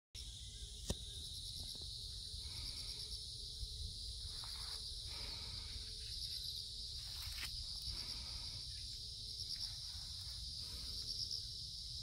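A steady, high-pitched insect chorus with a pulsing texture fills the air over a low steady rumble. A few faint clicks are heard, the first about a second in.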